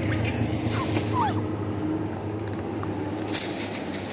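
Macaques giving short, high squeaks that fall in pitch, several in the first second and a half, over a steady low hum.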